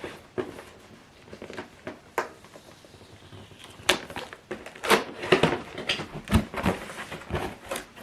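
Cardboard box and packaging being opened and handled: scattered taps, clicks and rustles, sparse at first and busier from about halfway through.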